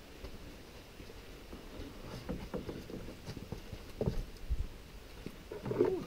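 Footsteps of a person portaging a canoe down a wet, muddy trail, with scattered soft knocks and a louder thump about four seconds in.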